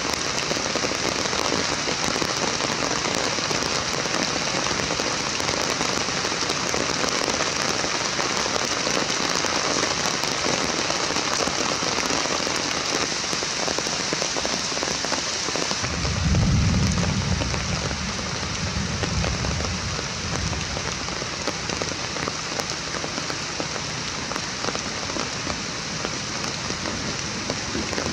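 Steady rain falling, an even hiss throughout, with a low rumble that swells about halfway through and fades over several seconds.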